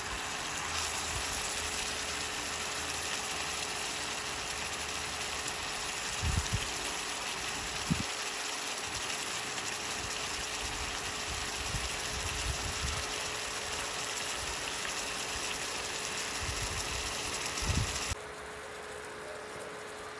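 Fish stew sizzling and bubbling in a pot on an induction stove, with a faint steady hum and a few soft knocks. The sound drops off abruptly near the end.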